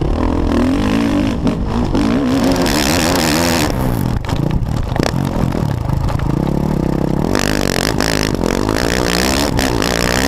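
Suzuki RM-Z450 four-stroke motocross engine revving hard and easing off over and over as the rider works the throttle through corners and straights, its pitch swinging up and down. There are stretches of rushing wind noise over the helmet camera.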